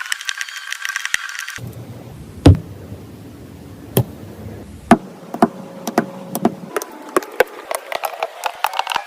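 A series of sharp taps and clicks, uneven in rhythm, with one loud knock about two and a half seconds in; the sound changes character abruptly several times, as between edited clips.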